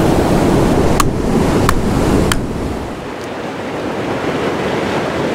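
Ocean surf washing against rocks, with wind buffeting the microphone. Three sharp clicks come in quick succession between about one and two and a half seconds in.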